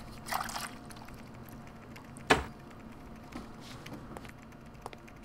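A short slurp of drinking from a blender jar, then a single sharp knock about two seconds in, with a few faint clicks after it.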